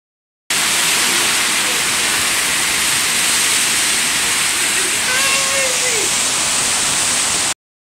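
Heavy rain pouring down in a dense, steady hiss during a thunderstorm. A short pitched sliding sound cuts through it about five seconds in.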